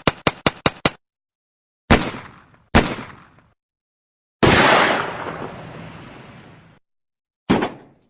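Fight sound effects: a quick run of about eight sharp hits, then two heavier blows with short fading tails. About halfway through comes a long noisy crash that fades out over two seconds, and one more hit comes near the end.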